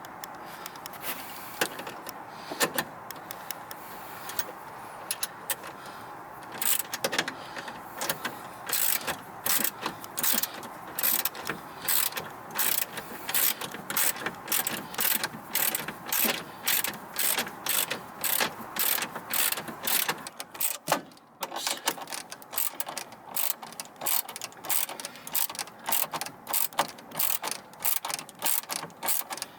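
Socket ratchet wrench clicking as it is swung back and forth, driving home the bolts of a van's swivel seat base. The clicks start about seven seconds in and go on in quick, regular bursts, with a short pause about two-thirds of the way through.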